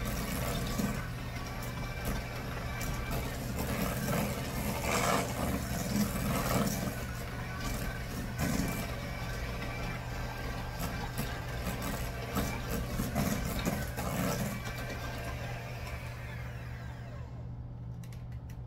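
Electric hand mixer running steadily, its beaters creaming butter and brown sugar in a stainless steel bowl. It is switched off and winds down near the end.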